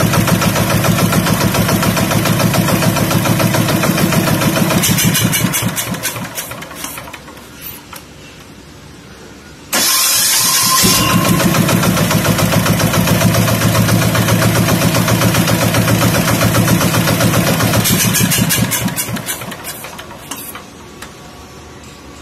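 Kaiser single-cylinder diesel boat engine running steadily, then shut off about five seconds in, its beats slowing as it runs down to a stop. Near ten seconds in it is started again and catches at once, runs steadily, and near the end is shut off again and slows to a stop.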